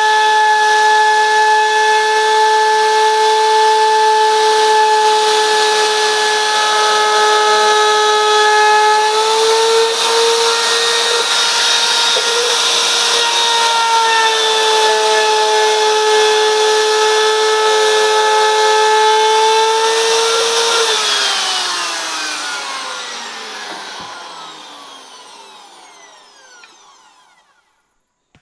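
Electric woodworking power tool's motor running at steady speed with a high whine, its pitch wavering briefly about a third of the way in. About three-quarters of the way through it is switched off, and the whine falls in pitch and fades as the motor spins down.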